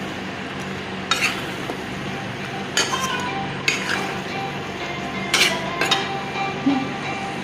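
Chicken with capsicum, onion and tomato frying in a kadai, with a steady sizzle, while a metal utensil stirs it, scraping and clinking against the pan about six times.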